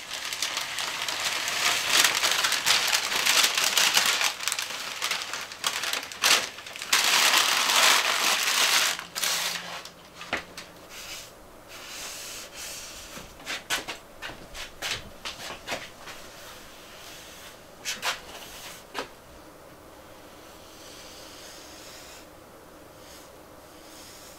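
Brown protective paper being pulled up off a countertop and crumpled, a loud crinkling for about the first nine seconds. After that come scattered short rustles and taps, dying away to a low background after about twenty seconds.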